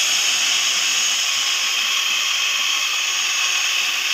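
Electric hand mixer's motor running steadily with both beaters spinning, a constant high whine over hiss. The drive gears have just been replaced and set, and the beaters turn without clashing.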